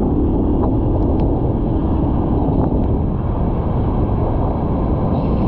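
Heavy tropical downpour: a loud, steady rush of rain.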